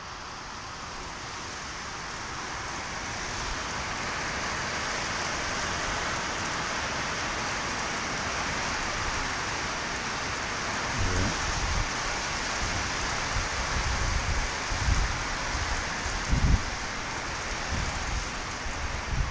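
Steady heavy rain hissing, growing a little heavier over the first few seconds. From about halfway there are several short, irregular low bumps under the rain.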